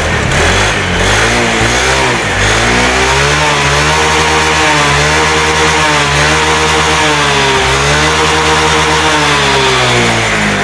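Honda Spacy scooter's single-cylinder four-stroke engine revved up and down repeatedly on the stand, freshly fitted with 6-gram CVT rollers, held at high revs for most of the time and dropping back near the end.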